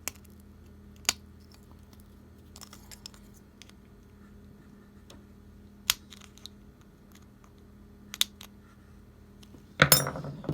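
Small sharp clicks and taps of tiny diecast toy car parts and tools being handled on a work surface, a few seconds apart, with a louder clattering burst near the end.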